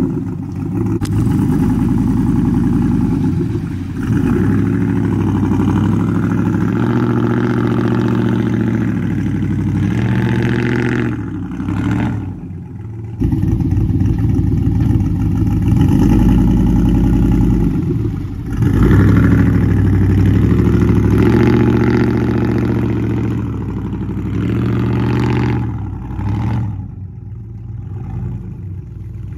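A lifted Chevy Silverado Z71 pickup's engine revving up and down under load as the truck climbs out of a creek bed on Interco Bogger mud tires, the revs surging and dropping again and again, with two short lulls.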